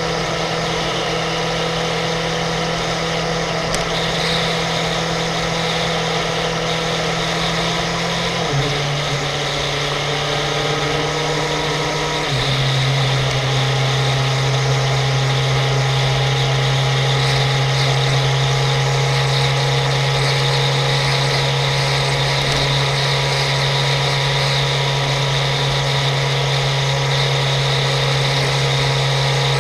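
Suzuki GSX-R750 K5's inline-four engine running at a steady highway cruise, with wind rush. Its pitch steps down sharply twice, about eight and twelve seconds in, as the rider shifts up a gear, and it runs a little louder after the second shift.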